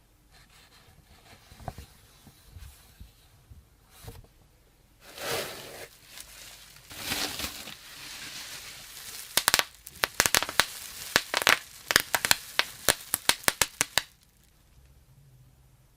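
Packaging being handled and torn open, crinkling and rustling, followed by a quick run of sharp crackles that stops suddenly about two seconds before the end.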